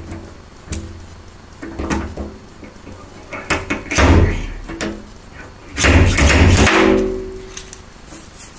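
Paintless dent repair slide-hammer puller yanking a hot-glued tab on a classic Mini van's steel side panel: a few lighter knocks, then two heavy pulls about four and six seconds in, the panel thudding and ringing with each.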